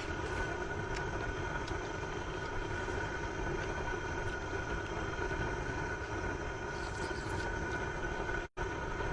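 LPG high-flame burner burning steadily under a hotpot, a constant rushing rumble.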